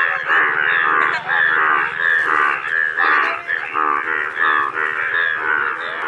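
A chorus of male Indian bullfrogs in bright yellow breeding colour, many calling at once with loud, overlapping croaks that repeat without a break: the breeding chorus they give in flooded fields.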